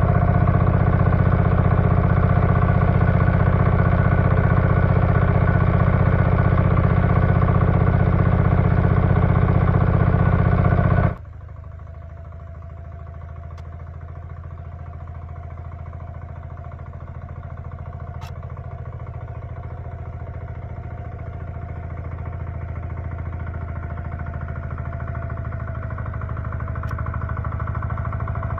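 Walking-tractor (agrimotor) engine running steadily and loudly with an even throb. About eleven seconds in the sound drops abruptly to a much quieter engine that slowly grows louder.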